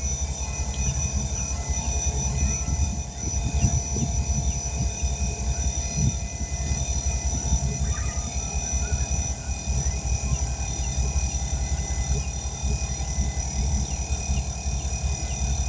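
Air compressor running steadily, a constant low rumble with a thin high whine, building pressure to about 60 psi for seating a tire bead.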